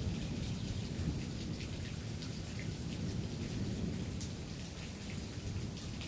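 Steady rain falling, a continuous noise heaviest in the low end, with a few faint ticks scattered through it.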